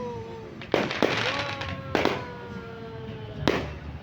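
Aerial fireworks going off: three sharp bangs about a second and a half apart, with thin, slowly falling tones lingering between them.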